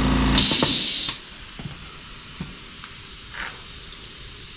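Air compressor running as it pressurises copper supply lines for a leak test, shutting off about half a second in, followed by a short loud burst of air hiss. A faint steady hiss continues afterwards.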